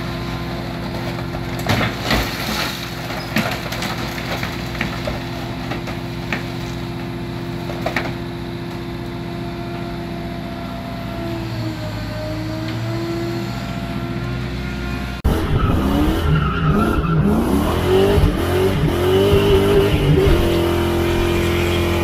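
A heavy scrapyard grapple machine's diesel engine runs steadily, with a few sharp metal clanks. About fifteen seconds in, it cuts sharply to a louder 2001 Ford Mustang GT's 4.6-litre V8 accelerating, its pitch rising and falling through the gears.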